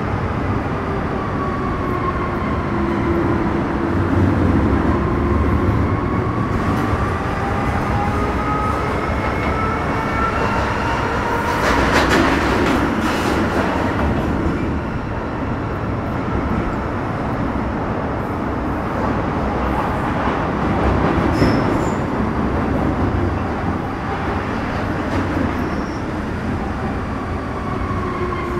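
MTR Metro Cammell M-Train (CT-stock C453) with GEC GTO chopper traction, running between stations and heard from inside the car. A steady wheel-and-rail rumble runs under whining traction tones that glide slowly up and down in pitch. Sharp clicks come about twelve seconds in and again near twenty-one seconds.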